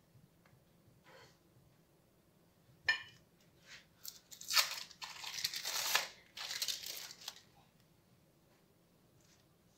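Crinkling, rustling handling noise for about three seconds, with a sharp click just before it, as hands break up and lay slices of cheese.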